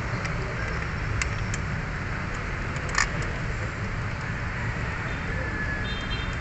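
Steady low rumble and hiss of background noise, with a few light metallic clicks as the automatic transmission oil pan bolts are turned in by hand; the sharpest click comes about three seconds in.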